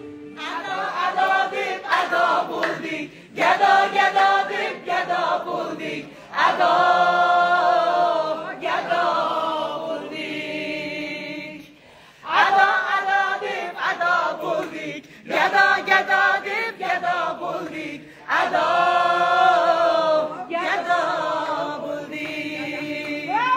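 A woman singing a song in full voice, in phrases of a few seconds each with short breaks between them.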